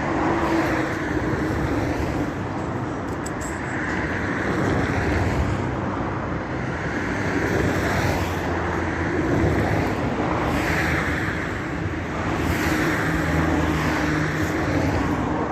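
Motor vehicle noise: a steady engine hum with swells every two to three seconds, like vehicles passing.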